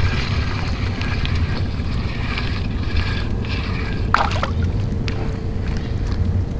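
Spinning reel being cranked to bring in a hooked fish, under a steady low rumble of wind on the microphone; one short rough burst about four seconds in.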